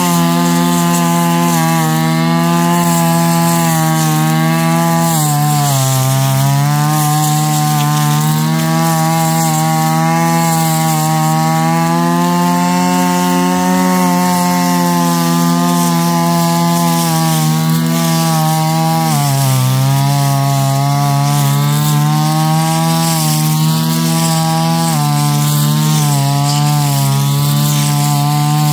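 Brush cutter engine running at high speed while its blade cuts through dense, overgrown grass and weeds. Its pitch sags three times as the blade bites into thick growth, recovering each time within a second or two.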